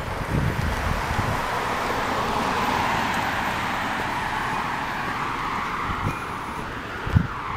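Road traffic noise: the tyres and engine of a passing car on asphalt, swelling over the first few seconds and then slowly fading.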